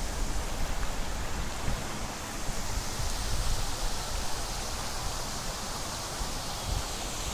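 Steady rushing of water from the garden's ornamental fountain and cascades spilling into the pools, with gusts of wind buffeting the microphone as a low rumble.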